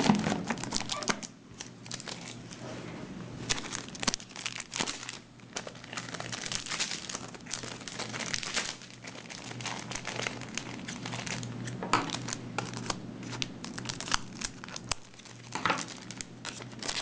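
Foil booster pack wrappers of Cardfight!! Vanguard trading cards crinkling and tearing open, a continuous run of irregular crackles and rustles.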